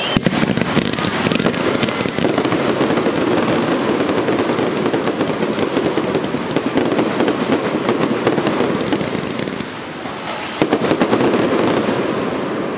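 Fireworks display: a dense, continuous crackle of many rapid small bangs. It dips briefly about ten seconds in, then swells again.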